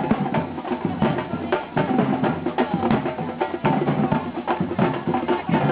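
Percussion music, mostly drums, with many quick strikes in a steady beat.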